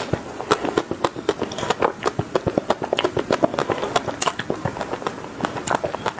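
Eating a chocolate-coated ice cream bar: a dense run of quick crackling clicks as the hard chocolate shell is bitten and chewed.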